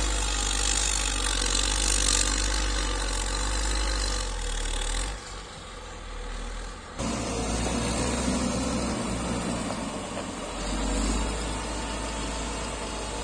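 Caterpillar 120K motor grader's diesel engine running steadily as the machine works the dirt roadbed. The engine sound dips about five seconds in, then changes suddenly about seven seconds in to a lower, heavier rumble.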